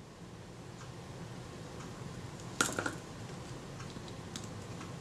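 Small clicks and taps from a Kodak Retina IIIc camera body and its small metal parts being handled, with a sharper cluster of clicks about two and a half seconds in, over a faint steady hum.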